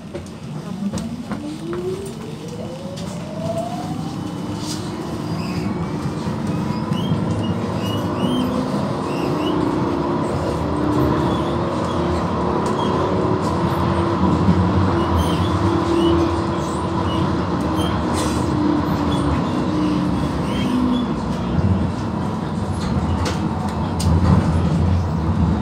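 Amsterdam GVB tram pulling away from a stop, heard from inside: its electric drive whines, rising in pitch over the first few seconds as it accelerates, then holding a steady tone over the rumble of the wheels on the rails. A few short high squeaks come in the middle.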